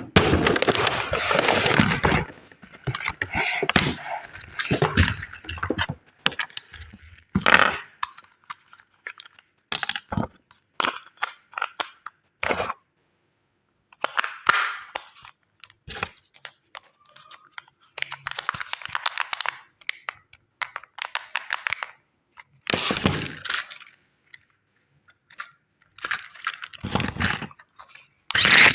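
Packaging being handled and opened: crinkling, crunching and tearing in irregular bursts, with sharp clicks and knocks in between and several dead-silent gaps.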